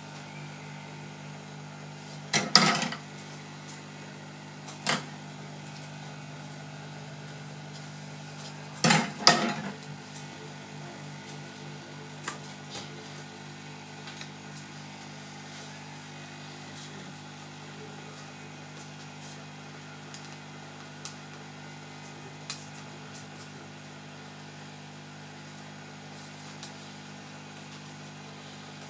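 Steady hum of a hot air rework station's blower, with short loud clatters of tools or the laptop being handled about two and a half and nine seconds in, a single knock near five seconds, and a few faint ticks later.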